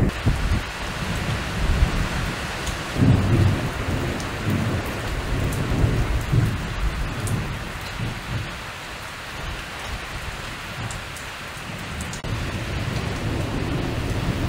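Thunderstorm: steady rain falling, with low thunder rolling again and again, the strongest roll about three seconds in. The rain gets louder about twelve seconds in.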